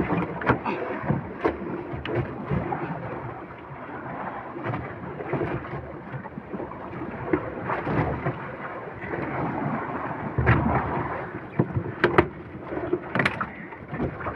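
Steady wash of wind and water noise on a small fishing boat, with irregular knocks and thumps as a large yellowfin tuna is hauled and shifted against the hull. The loudest knocks come in the last few seconds.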